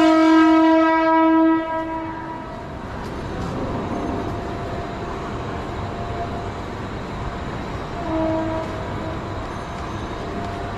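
Suburban electric local train's horn: one long, loud blast of about two seconds at a steady pitch, then a second shorter blast about eight seconds in, over a steady hum of rail and station noise.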